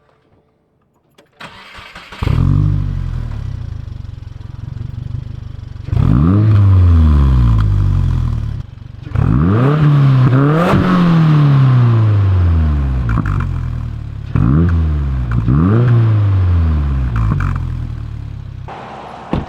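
2022 Subaru WRX (VB) 2.4-litre turbocharged flat-four starting about two seconds in, then idling and blipped up and down about five times, each rev rising and falling quickly. It runs through a Tomei titanium exhaust with the centre silencer insert removed, and sounds much deeper with it out.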